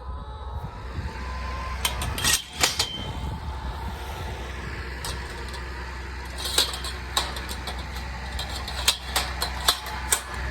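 Tractor engine running steadily with a low drone, with scattered sharp knocks and clatters over it, in clusters about two seconds in, around the middle and near the end.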